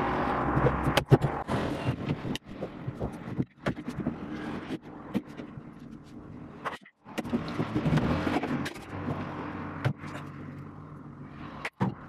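A screwdriver prying and scraping at a refrigerator's plastic liner and metal front rail as it is taken apart, with scattered knocks and clicks.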